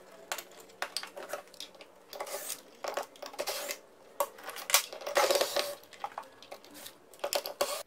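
Hands unplugging green plug-in terminal connectors from stepper motor drivers and handling tools: irregular clicks, knocks and rattles of small plastic and metal parts, densest a little after the middle.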